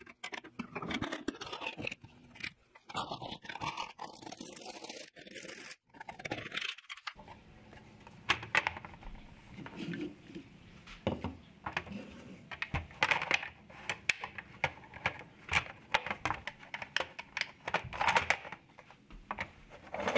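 A hand deburring tool scraping leftover plastic from drilled holes in a clear plastic storage box. Then comes a run of irregular clicks and knocks as the plastic box and its lid are handled.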